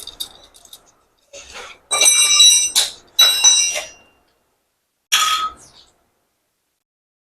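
Metal parts clinking and knocking together, with bright ringing that hangs on after the two loudest knocks about two and three seconds in.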